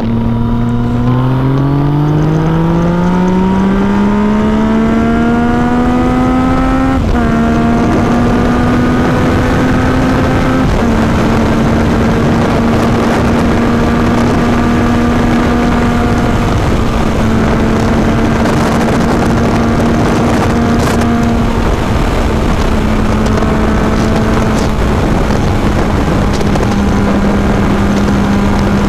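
Yamaha MT-09's three-cylinder engine, breathing through an Akrapovič titanium exhaust, pulling hard under full throttle. Its note rises steadily for about seven seconds, dips briefly, then holds a steady pitch at speed.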